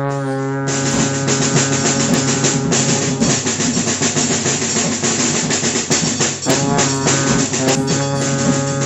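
Instrumental music: a drum kit beat over held chords, leading into a country-style song.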